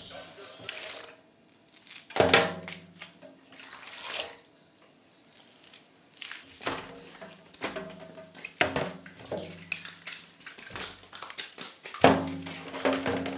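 Hands splashing and sloshing toys about in gooey, slime-thickened water in a stainless-steel tray: a run of wet splashes and plops. There are two louder knocks, about two seconds in and near the end, each followed by a brief ringing tone.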